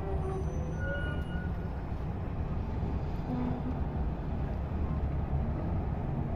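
Heavy earth-moving machinery at an opencast coal mine running with a steady low rumble.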